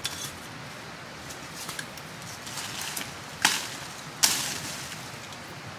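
Footsteps in dry leaf litter with small crackles, and two sharp snaps of dry twigs underfoot about three and a half and four seconds in, the second followed by a short rustle.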